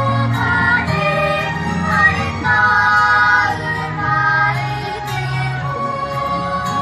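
Children's vocal ensemble singing a children's song in unison over a backing accompaniment, moving through short sung phrases and then holding one long note near the end.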